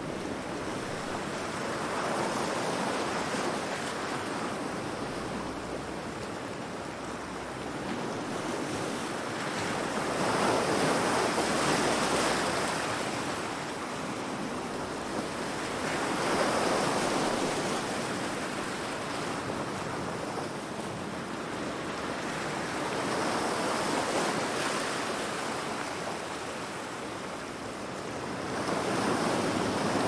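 Ocean surf: waves breaking and washing in, the hiss swelling and fading in surges every five to eight seconds.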